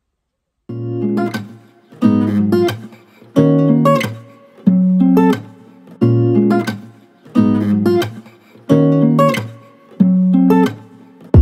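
Background music of a strummed acoustic guitar, starting about a second in. A chord rings out roughly every second and a half and fades before the next.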